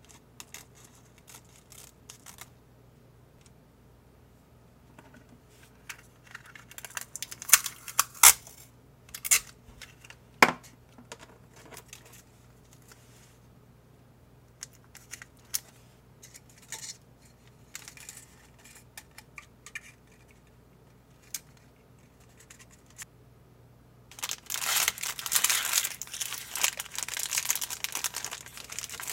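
Plastic candy-kit packaging being cut and torn open: small snips of scissors through a foil-plastic bag, then a cluster of loud crackles and tearing snaps about a third of the way through. Near the end, steady crinkling of cellophane wrap as a bundle of powder packets is unwrapped.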